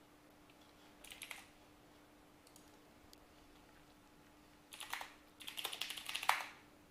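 Typing on a computer keyboard: a short flurry of keystrokes about a second in, a couple of lone clicks, then a quick run of keystrokes near the end as a shell command is typed.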